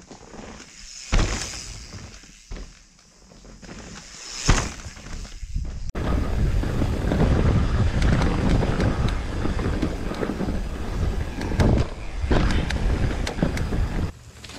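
Electric mountain bike riding a dirt forest trail: tyre and frame rattle over the ground with wind on the microphone. It is quieter at first with a couple of sharp knocks, then turns into a loud, steady rush from about six seconds in.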